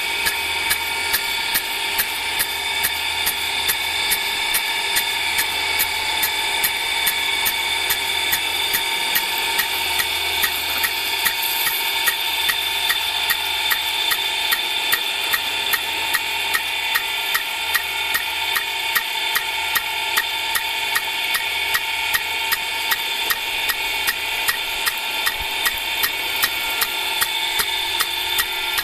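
Rain gun impact sprinkler running: its swing arm knocks against the nozzle in an even series of sharp clacks, about two to three a second, over the steady hiss of the water jet.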